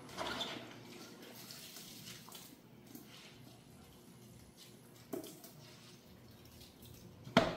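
Shredded cabbage squeezed by hand over a plastic basin, water dripping and trickling back into it to wring the cabbage out. A sharp knock near the end is the loudest sound.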